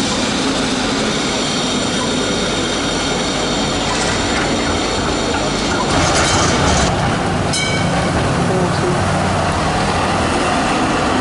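Melbourne electric trams running past close on street track: steady high whining tones over the rolling noise of wheels on rail, then a heavier low rumble about six seconds in as a tram goes by, with a brief sharp ring partway through.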